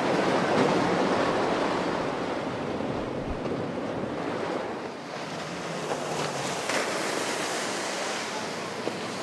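Rush of breaking waves and hull spray from a center-console boat running fast through rough water, with wind buffeting the microphone. The noise is loudest at the start and eases off.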